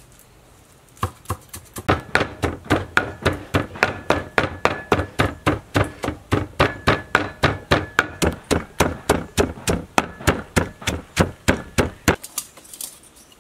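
Wooden pestle pounding chopped herbs in a clay mortar to make a spice paste: a steady run of dull thuds at about four strokes a second, starting about a second in and stopping shortly before the end.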